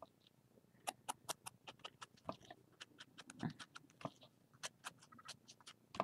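Quiet, irregular small taps and clicks of a painted card cutout and an ink pad being handled, a few a second.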